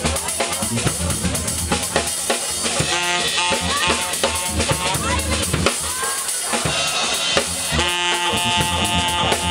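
A live band jamming: a drum kit keeps a steady groove, and a saxophone plays phrases over it from about three seconds in, holding a long note near the end.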